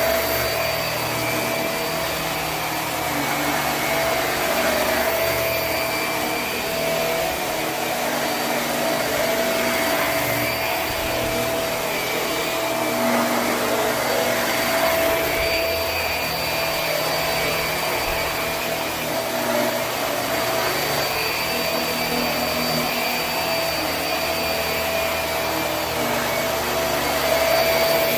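Hoover High Performance Swivel upright vacuum running steadily on carpet, a constant rushing of air with a steady motor whine, its loudness swelling slightly now and then.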